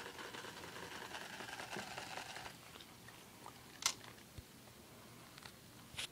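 Sony Aibo robot dog moving: a soft crackly mechanical whir for about two and a half seconds, then a few sharp clicks, the loudest about four seconds in and another near the end.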